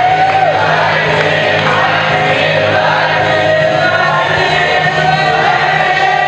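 Song with a group of voices singing together over a backing track with a steady bass line.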